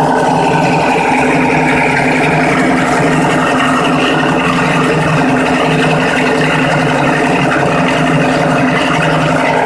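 Plastic-recycling grinding machine running steadily and loudly: a constant mechanical drone with a rough, grinding noise layered above it.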